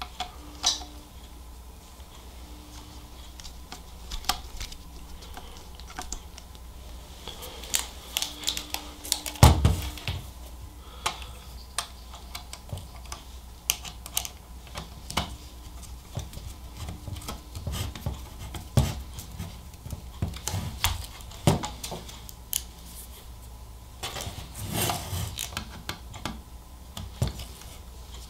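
Scattered small clicks, taps and scrapes of a Phillips screwdriver driving small screws through a metal mounting cage into a car stereo head unit as the unit is turned and handled, with a louder knock about nine seconds in. A faint low hum runs underneath.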